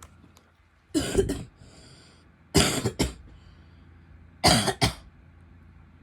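A woman coughing in three short bouts, each a quick double cough, about a second and a half apart.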